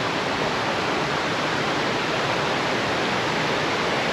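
Waterfall and its stream rushing steadily, a loud even roar of water running high after rain.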